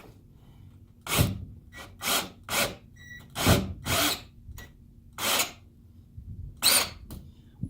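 Power drill driving a Teks self-drilling screw through the wooden subfloor into the bus's metal frame, in about seven short, noisy bursts. The screws go in easily.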